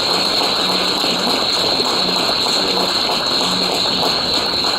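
Large audience clapping in steady, sustained applause. A constant high-pitched whine sits beneath it.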